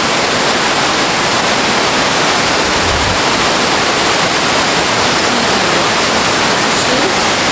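Fukiware Falls on the Katashina River: a waterfall's steady, loud rush of falling water.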